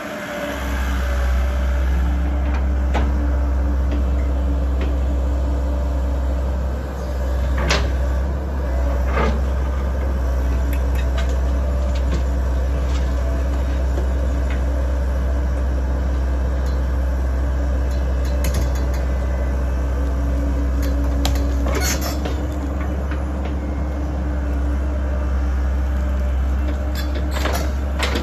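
Heavy diesel engine of a Komatsu tracked excavator running steadily under load while it digs demolition rubble. A few sharp knocks and clatters are heard as broken concrete and dirt strike the steel bucket.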